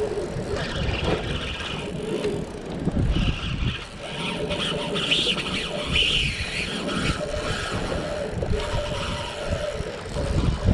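Spinning reel being cranked to wind in a hooked fish, heard under gusty wind buffeting the microphone.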